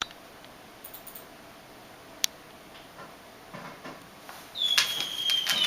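Firecracker sound effect played back: a quick run of sharp cracks over a steady high whistle, starting suddenly about four and a half seconds in after a few faint ticks and one sharp click.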